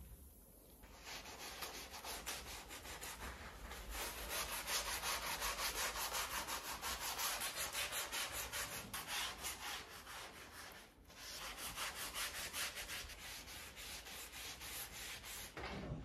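Sponge scrubbing a wet, foamy bamboo wooden board in rapid back-and-forth strokes, starting about a second in, with a brief pause about eleven seconds in.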